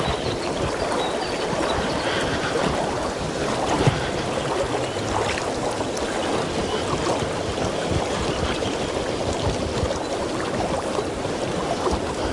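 Steady rush of river water flowing past and around a wader standing in the current.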